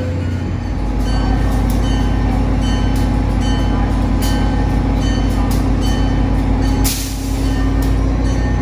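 EMD GP40-type diesel locomotive running with a steady low engine drone as a commuter train moves along the platform, with repeated clicks of wheels over the rails and a brief hiss about seven seconds in.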